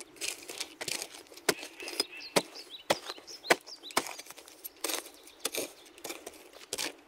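Camp axe-shovel tool being handled: sharp metallic clicks and knocks at irregular intervals, about one or two a second, with light crunching in between.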